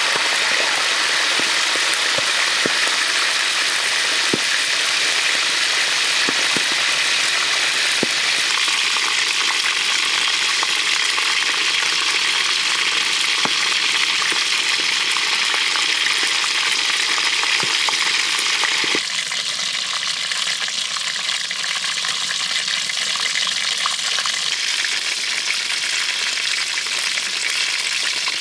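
Stingray deep-frying in hot oil: steady sizzling with small crackling pops, a little quieter about two-thirds of the way through.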